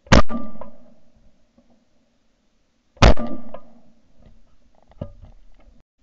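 Two shotgun shots about three seconds apart, fired at an incoming pair of clay targets and picked up by a camera mounted on the gun, each with a short ringing tail. A fainter metallic clack follows about five seconds in.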